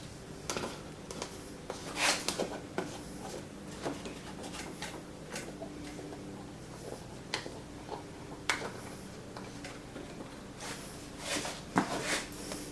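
Scattered knocks, clicks and clatter of wooden jig parts being handled and set in place, with louder knocks about two seconds in and near the end, over a faint steady hum.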